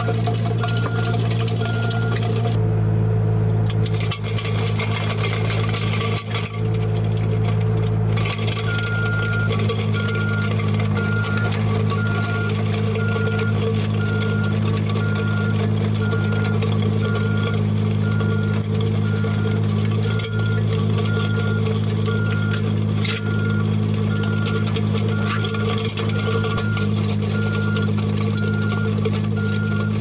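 Mini skid steer's engine running steadily while its hydraulic power rake attachment tills soil, with a high beep repeating about one and a half times a second, which drops out for a few seconds near the start.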